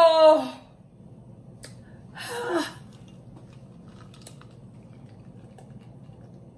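A woman's long drawn-out "ahh" of fullness that falls in pitch, then a second, shorter sigh about two seconds later. After that, faint small clicks as she sips from a glass of ice water.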